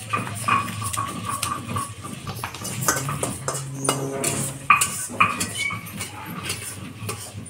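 Steel dishes and utensils clinking and knocking in a home kitchen, with a low drawn-out call about halfway through.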